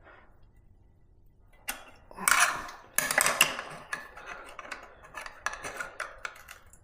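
Small metal tools and bicycle brake parts clinking and rattling in hand: a sharp click about a second and a half in, then a few seconds of irregular metallic clicks and clatter.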